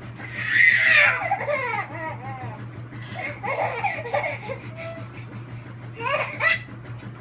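Baby laughing in bursts: a loud peal of giggles about half a second in, more laughing around three to four seconds in, and a short burst near the end, over a steady low hum.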